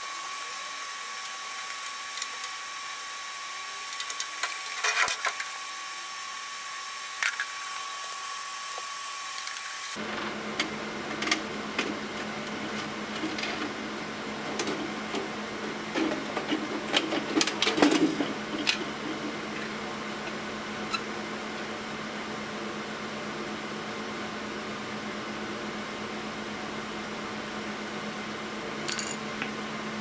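Sharp metallic clicks and clatter of sheet-metal parts being handled and screws being undone with a T-handle hex key, loudest a little past the middle, over a steady electrical hum. The background changes abruptly about a third of the way in, where a thin high tone gives way to a lower hum.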